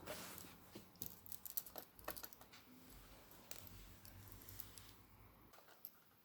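Faint clicks and light scrapes of a screwdriver backing out the small screws that hold a laptop's screen panel, with the little metal screws ticking as they are handled. The clicks are thickest in the first two and a half seconds, followed by a low rumble of handling.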